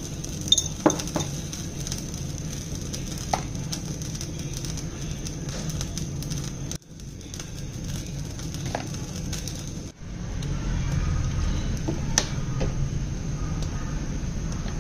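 A few light clicks and taps from seasoning containers and a spoon against a ceramic bowl as pepper, salt and soy sauce are added, over a steady low background hum. The sharpest clicks come about a second in.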